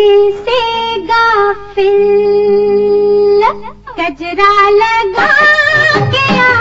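A woman's voice sings a Hindi film song in long, held notes with ornamental turns over a faint sustained accompaniment. About five seconds in, the full film orchestra with percussion joins.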